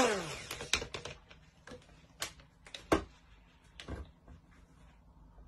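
Immersion blender motor winding down, its pitch falling away in the first half second, followed by a few sharp clicks and knocks as the blender is set down and the plastic jug handled.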